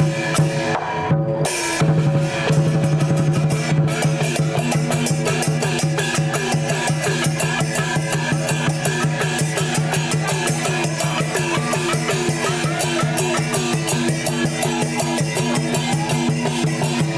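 Chinese festival percussion: a large drum beaten in a fast, continuous beat, with cymbals clashing and gongs ringing underneath.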